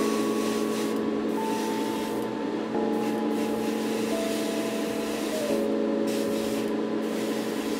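Gravity-feed airbrush hissing as air is let through at about 21 psi, cutting out briefly several times as the trigger is released. Background music with slow, held notes plays underneath.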